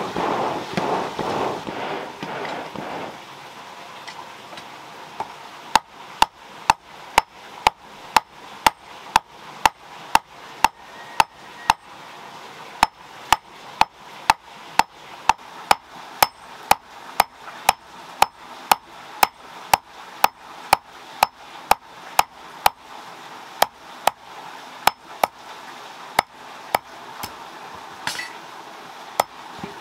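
A hand hammer forging a red-hot thin metal rod on a stone anvil, about two blows a second, each a sharp clink with a short metallic ring. A rushing noise stops about three seconds in, before the hammering starts.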